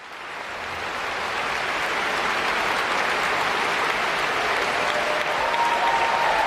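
Audience applauding steadily in a concert hall, fading in at the start. A few held tones sound above the clapping near the end.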